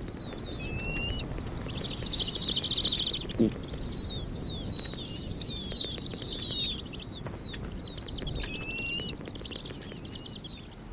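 A small bird singing a continuous run of high, descending twittering and trilling phrases over a low rumble of wind.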